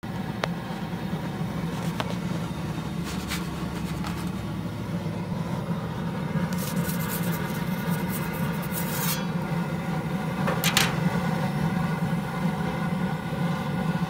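Blackstone pizza oven running with a steady hum. A metal pizza peel scrapes across the stone for a couple of seconds about halfway through, with a second short scrape a little later, and a few light clicks come earlier.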